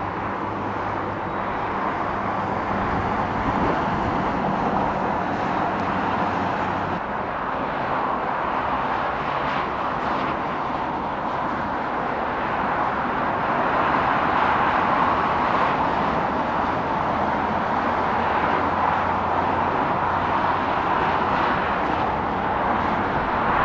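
Distant jet noise from a Cessna 750 Citation X's twin Rolls-Royce AE3007 turbofans as the aircraft flies past high overhead: a steady rushing sound that swells slightly and then holds.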